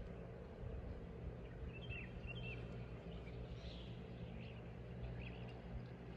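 A few short bird chirps, a cluster about two seconds in and scattered ones later, over a steady low outdoor background rumble.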